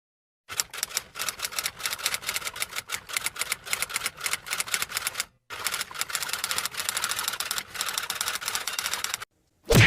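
Rapid, irregular clicking, in two runs of several seconds each split by a brief pause, with a short loud hit near the end.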